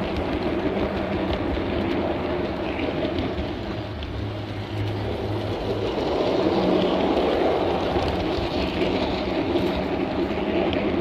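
Small-gauge garden railway train running along the track: a steady rumble of wheels on the rails with a constant low mechanical hum.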